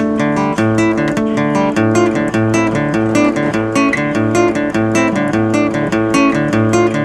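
Background music: acoustic guitar played with a steady, even rhythm.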